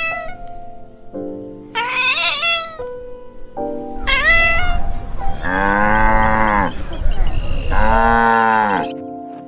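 Two short kitten meows, then a calf mooing twice in long drawn-out calls, over background music with steady held notes.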